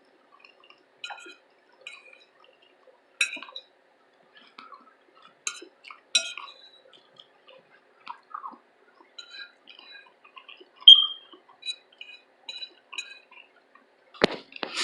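Close-up eating sounds: cutlery clinking against a plate, with scattered small wet clicks of chewing. There is one brief ringing clink about eleven seconds in and a heavier knock near the end.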